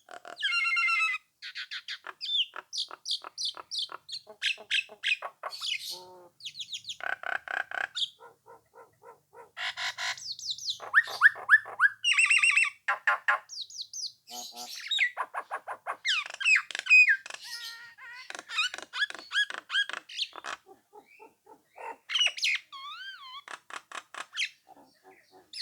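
Nias hill myna singing in full, non-stop voice: a fast, varied string of loud whistles, squawks and chattering notes with short pauses between phrases.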